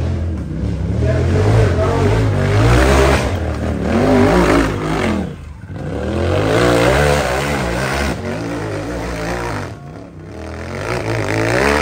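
Side-by-side UTV engine revving hard under load, its pitch surging up and down as the throttle is worked. It drops off briefly twice and climbs back up each time.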